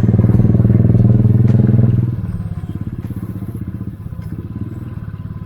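Motorcycle engine running under way, its low pulsing note loud at first and then dropping to a quieter, steady run about two seconds in as the throttle is eased off.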